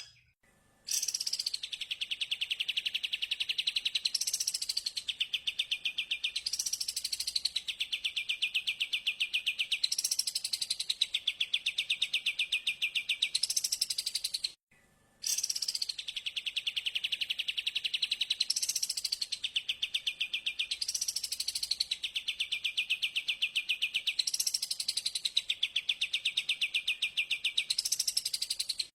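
Recorded songbird call played on a loop as a lure. A rapid, high trill breaks into a quick rising-and-falling sweep, repeating about every two seconds. The recording cuts out briefly near the start and about halfway through as the loop restarts.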